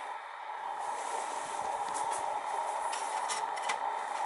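A steady mechanical whir that strengthens about half a second in, with a few faint clicks.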